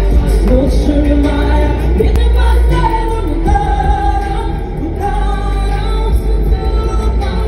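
A woman singing live into a microphone over a loud pop backing track with heavy bass, amplified through a concert PA.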